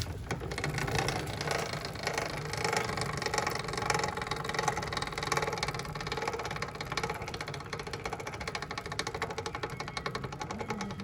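Honda 125 motorcycle's single-cylinder four-stroke engine running steadily with a fast, even ticking rattle. This is the abnormal engine noise being shown as the problem to fix.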